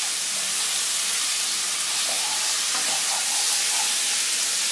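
Chicken pieces frying in hot oil in a stir-fry pan, a steady sizzle, with a wooden spoon stirring them around the pan.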